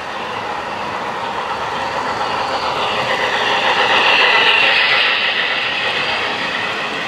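HO scale model train running past on the layout track, its wheel and drive noise swelling to a peak about four seconds in and then fading.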